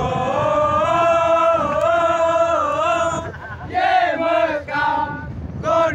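Group of young men chanting together in unison: one long drawn-out call with a wavering pitch for about three seconds, then a run of short shouted calls.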